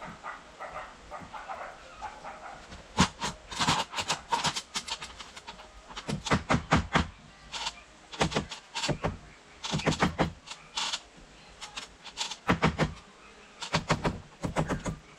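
Hammer driving nails into the timber rafters of a wooden shed frame: sharp knocks in short runs of quick blows, several a second, with pauses between runs, starting about three seconds in.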